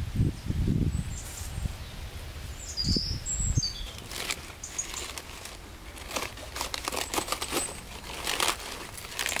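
Crisp crackling and rustling of cabbage leaves, many sharp crackles from about four seconds in as a cabbage head is handled and cut with a knife. Low rumbles come in the first second and again around three seconds, and a bird chirps a few times before the crackling starts.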